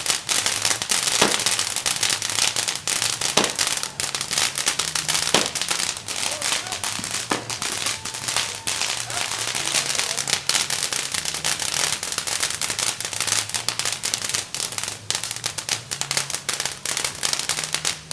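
Firecrackers going off in a dense, continuous crackle of rapid pops, with a few louder cracks standing out every couple of seconds.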